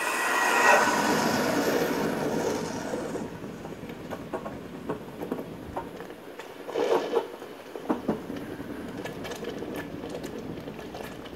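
Red-hot metal ingot quenched in a steel pot of water: loud hissing and boiling that fades over the first few seconds into crackling pops and bubbling, with a short surge of hissing again about seven seconds in.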